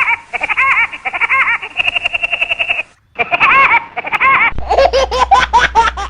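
Cartoon woodpeckers' rapid, stuttering laughs, in runs of quick rising-and-falling notes with a short break about three seconds in. About four and a half seconds in a lower-pitched laugh takes over with a low hum beneath it.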